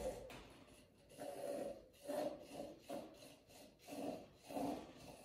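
Gas-charged whipping siphon dispensing gorgonzola foam through its nozzle in a series of short spurts, about one every half second.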